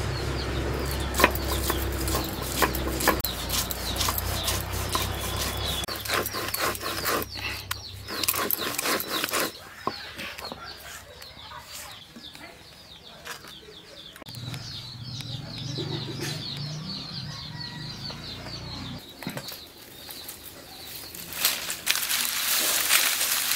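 Stone roller grinding on a flat stone slab (sil-batta), a low scraping rumble with many clicks, fading after about eight seconds. Birds chirp in the background, and near the end dry leaves and sticks rustle as they are dropped in a heap.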